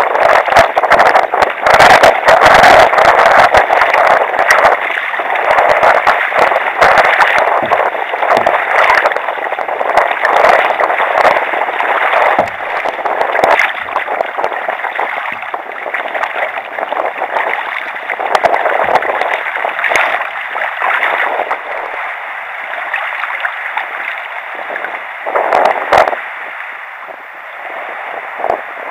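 Choppy sea water splashing and rushing against a sea kayak's hull and paddle, with many sharp splash knocks. It is loudest in the first ten seconds and grows quieter near the end as the water calms.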